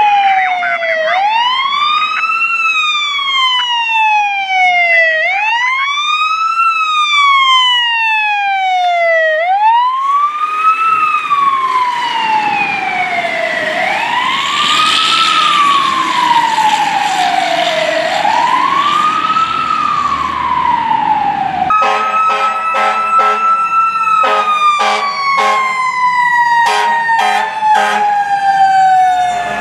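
Fire engine siren wailing, rising quickly and falling slowly about every four seconds, with engine noise as the apparatus passes. About two-thirds of the way through, the wail gives way to a single siren tone falling slowly, joined by rapid repeated pulsing blasts.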